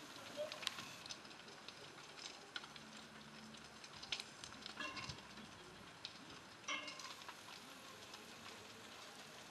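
A large roof fire crackling faintly, heard at a distance: scattered crackles and clicks over a steady hiss.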